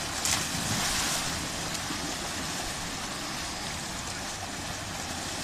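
Water from a water slide's outlet rushing steadily into the splash pool, with a splash in the first second as a rider shoots out of the slide into the water.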